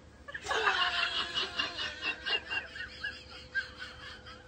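A person laughing in a run of short bursts, about four a second, fading away over a few seconds.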